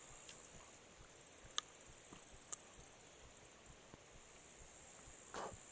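Quiet outdoor ambience: a steady high hiss, with a rapid high-pitched ticking for about three seconds, two short sharp chirps, and a brief rasp near the end.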